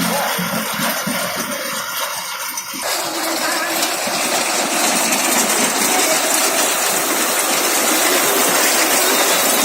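Engine running steadily with the clatter of a round straw baler at work. About three seconds in, the sound turns denser and louder and keeps building slowly.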